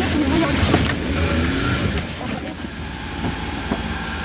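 Small vehicle's engine running steadily while driving along a dirt track, with occasional knocks and rattles from the body, heard from inside the passenger cab.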